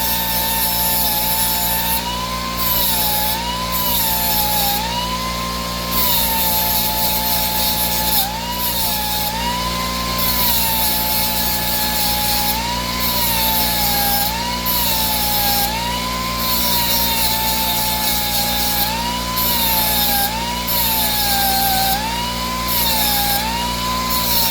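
A die grinder runs with a grinding bit against the cutter teeth of a hedge trimmer blade to sharpen them. Its whine keeps swooping up and down, once every second or two, as the load comes and goes on each tooth. Bursts of high grinding hiss start and stop along with it.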